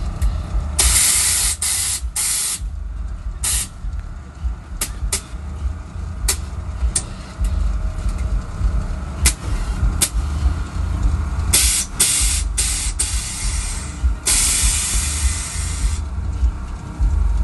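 Chevy Astro van's air-bag suspension letting out long bursts of hissing air as it shifts the van side to side, three main bursts with many short sharp clicks between them, over a steady low rumble.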